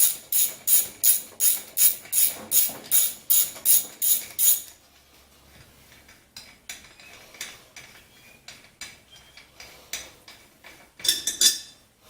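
Ratchet wrench clicking in quick even back-and-forth strokes, about three a second, as a bolt is turned. After about five seconds it gives way to faint scattered clicks of tool and bolt handling, with a short clatter near the end.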